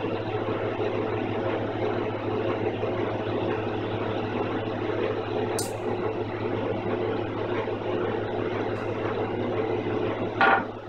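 Rikon 25-210H jointer-planer running with no board in the cut, its motor and helical cutterhead spinning with a steady hum. There is a brief click about halfway through and a short knock near the end.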